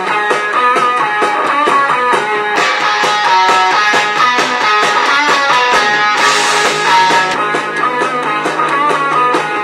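A song with guitar played through a JBL Go 2 portable Bluetooth speaker in a sound test, with very little deep bass.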